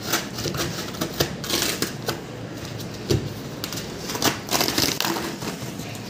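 Corrugated cardboard shipping box being slit with a knife and torn open by hand: irregular scraping, crackling and ripping of the cardboard.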